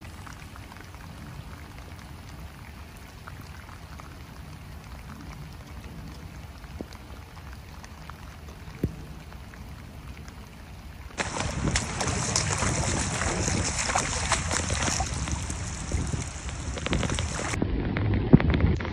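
Steady rain falling on water, an even hiss with scattered drop ticks. About eleven seconds in it cuts to louder, closer rain.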